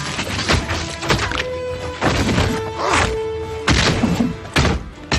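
Action-film soundtrack: score music with held tones under a series of punch and impact sound effects from a hand-to-hand fight, about half a dozen hard hits roughly a second apart.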